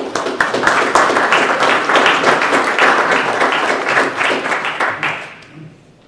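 Audience applauding, starting at once and dying away about five seconds in.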